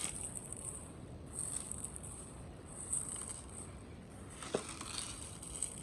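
Plastic packaging and cable trunking being handled: irregular rustling and crinkling with a sharp click about four and a half seconds in.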